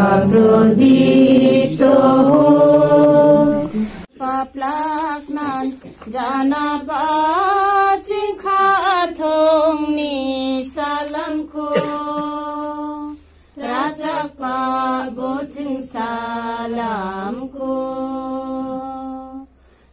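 Women's voices singing a Bengali devotional prayer hymn together. About four seconds in it cuts abruptly to a different song, a welcome song sung by women's voices with long held notes and short breaks between phrases.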